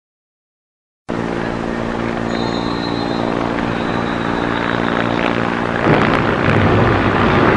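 Silent for about a second, then a helicopter's engine and rotor running steadily in an even hum. About six seconds in it gives way abruptly to a louder, even rush of noise.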